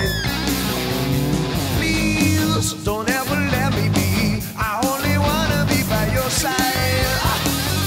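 Rock music with guitar and singing, playing steadily over the footage.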